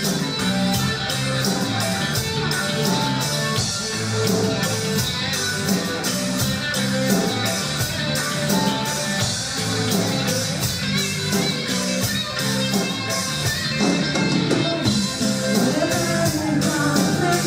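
Rock band playing live: electric guitars, bass and a drum kit keeping a steady beat.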